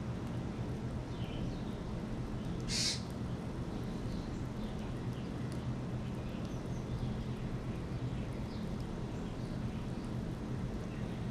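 Small birds chirping faintly and scattered, with one loud, harsh, short bird call about three seconds in, over a steady low background rumble.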